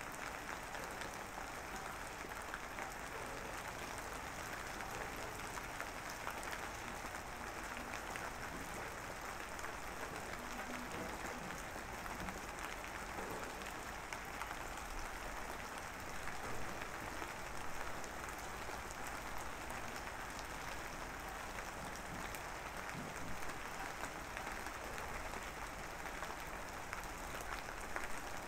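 A steady, even crackling hiss with no clear events in it, like light rain or distant applause.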